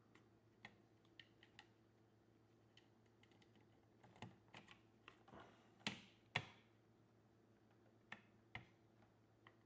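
Scattered small clicks and taps from the plastic housing and connectors of a fish finder being handled, with two sharper clacks about six seconds in.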